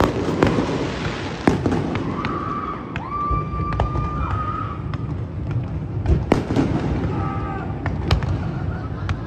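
Fireworks going off: a string of sharp bangs about once a second, irregularly spaced, over a steady low rumble.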